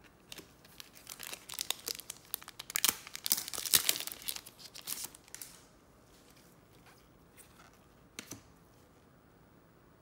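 Trading card pack wrapper being torn open and crinkled, a dense crackling for about five seconds, loudest midway, then one short rustle near the end.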